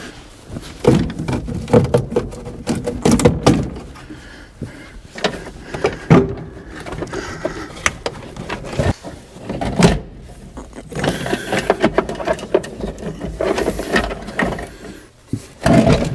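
Irregular knocks, clicks and scraping of a 1966 Mustang's heater box being worked loose and lowered from under the dashboard by hand, with a few sharper knocks about six and ten seconds in.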